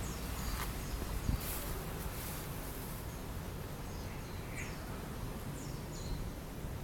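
Steady wind rushing, with a few short, high bird chirps scattered through it.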